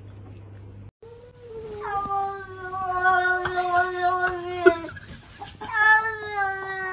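A cat yowling in two long, drawn-out calls. The first lasts about four seconds and sags slightly in pitch. The second begins near the end and is shorter. A few faint clicks sound during the calls.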